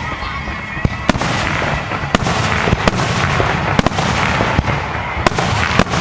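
Fireworks display: sharp bangs of shells bursting, several a second apart, over a steady low rumble, with a dense crackling from about a second in.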